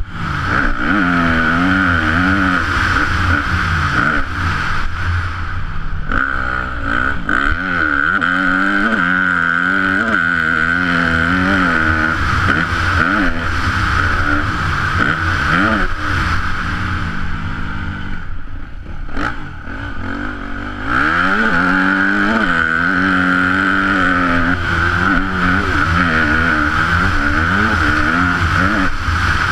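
Yamaha YZ250F four-stroke single-cylinder motocross bike engine revving up and down through the gears on the track, heard from a helmet camera. About two-thirds through, the engine drops off briefly, then comes back on hard.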